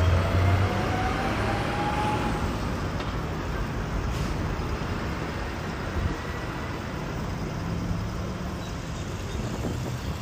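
Petrol pump dispensing fuel into a car's tank: a steady rushing noise with a low hum, and a faint whine that rises over the first two seconds.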